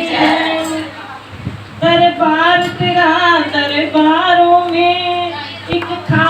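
A woman singing a Hindi devotional bhajan in long, drawn-out melodic phrases, with a sharp click near the end.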